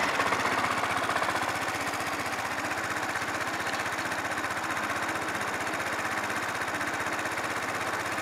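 2012 Yamaha BW'S 125 scooter's single-cylinder four-stroke engine dropping back from a throttle blip over the first couple of seconds, then idling steadily with an even exhaust pulse. The seller describes the engine as in good condition.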